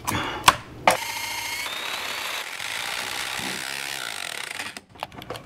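Power drill with a spade bit boring into the end of an insulated aluminum roof panel, running steadily for about four seconds and then stopping as it gets through. A couple of sharp knocks come just before the drill starts.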